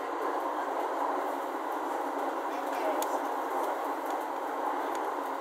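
E231-0 series electric train running at speed, heard from inside the car: a steady running noise of wheels on the rails, with a few faint ticks.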